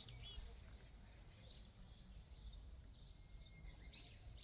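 Faint, scattered chirps of small birds at intervals over a low steady rumble of outdoor background noise.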